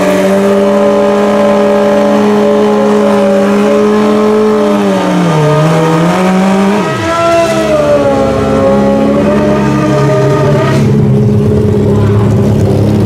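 Suzuki drag bike's four-cylinder engine held at high revs through a burnout, its pitch dipping briefly about five seconds in, then revving up and down before it settles to a lower steady run near the end.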